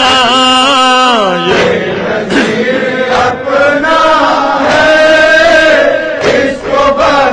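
Noha recitation: a solo male voice sings a wavering, ornamented line that falls away about a second and a half in. Then a chorus of voices takes up a steady chanted refrain.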